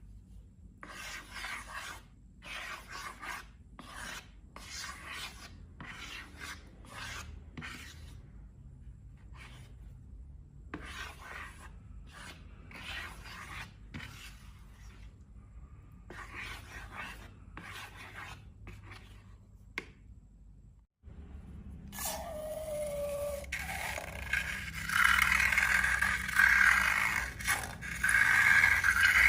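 Slime being scraped and worked with a tool in a series of short rubbing strokes. After a brief break about twenty seconds in, the scraping becomes denser and louder, with a short falling squeak near the start of that part.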